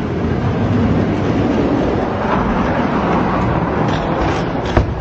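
Die-cast toy monster trucks rolling fast down a long orange plastic Hot Wheels track: a steady, loud rumbling clatter of hard wheels on the plastic track and its joints. A single sharp knock comes just before the end.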